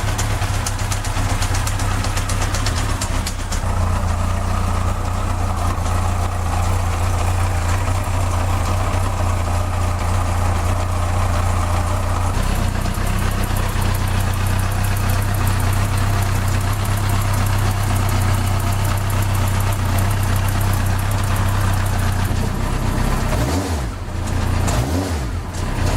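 Yamaha FJ1200's air-cooled inline-four motorcycle engine idling, with a fast light clicking from the top end. The clicking is cam chain and valve noise that remains after a new cam chain tensioner, a new head-top chain guide and valve-clearance shims.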